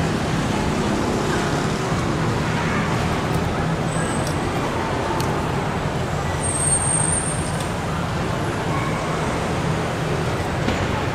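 Steady background noise of a covered market: a constant low hum and hiss with no distinct events.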